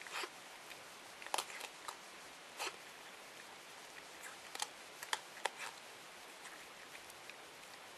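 Masked palm civet chewing dry dog food kibble: irregular short crunches and clicks, a handful of louder ones in the first six seconds and fainter ones after.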